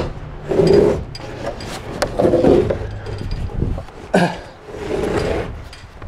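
Irregular wooden knocks and light metallic clinks as a heavy laminated-veneer-lumber (LVL) ridge beam is shoved and shifted by hand against the wood framing and an aluminium ladder. The sharpest knocks come right at the start and about four seconds in.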